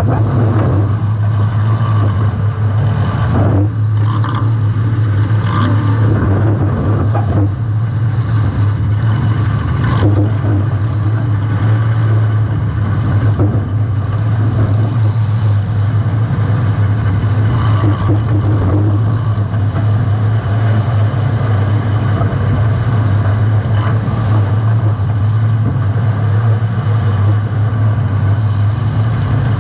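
Compact demolition-derby car's engine running steadily and loud. A few sharp knocks and clatter from hits between cars are heard about 3, 4, 6, 10 and 24 seconds in.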